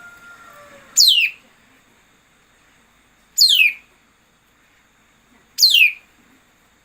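A songbird's call repeated three times at even spacing, each a brief high note sweeping sharply downward. This is a lure call of the kind played to draw wild birds into a trap.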